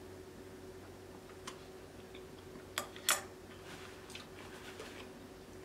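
Close-miked chewing: soft mouth clicks and smacks, with two sharper clicks close together a little under three seconds in, over a faint steady hum.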